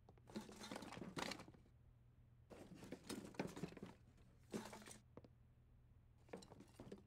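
Quiet rustling, crinkling and light knocks of stored things being rummaged through and moved about, in four short spells with pauses between.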